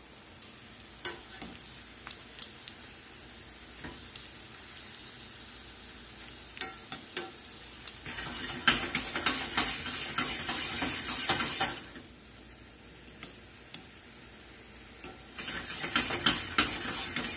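Whole shrimp sizzling in a Worcestershire-based sauce in a hot skillet over medium-high to high heat. Tongs click against the pan now and then, and the sizzle grows louder and busier while the shrimp are stirred and tossed, from about 8 to 12 seconds in and again near the end.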